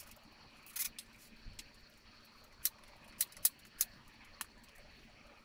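Cordless brad nailer driving nails into cedar plywood: a handful of sharp, separate clicks, three of them in quick succession a little past the middle.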